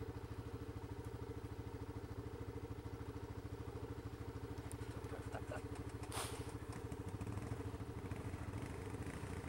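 Yamaha Grizzly ATV's single-cylinder four-stroke engine idling steadily, with an even pulsing beat.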